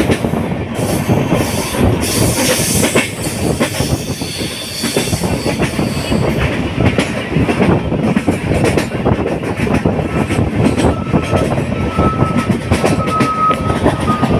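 Diva–Vasai Road MEMU electric train running at speed, heard from its open doorway: a continuous loud rattle and clickety-clack of wheels and coach. A thin high squeal comes in about two-thirds of the way through.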